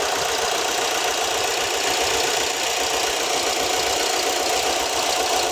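2007 Ford Escape engine idling steadily with one fuel injector unplugged for a cut-out test; the engine shakes hard, which shows that cylinder was firing properly.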